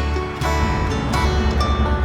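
Background music with a steady bass line and distinct note attacks.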